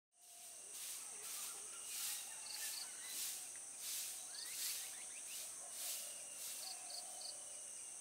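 Rural ambience of insects and birds: a steady high insect drone that pulses about twice a second, with short bird chirps in twos and threes and scattered whistled bird calls.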